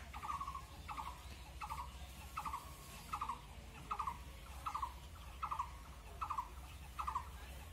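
A repeated animal call: a short trilled note, slightly falling, given about every three-quarters of a second in a steady rhythm, over a low rumble.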